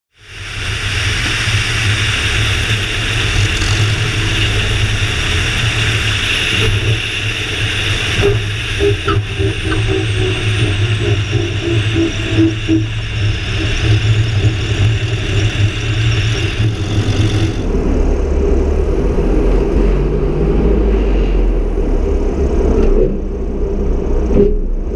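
Whisper X350 kitplane's Lycoming engine and constant-speed propeller running steadily as the aircraft rolls along the runway. About two-thirds of the way through, the sound turns deeper and duller, with less hiss on top.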